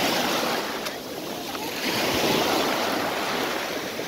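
Sea waves washing onto a sandy beach, a steady surf that swells louder about halfway through.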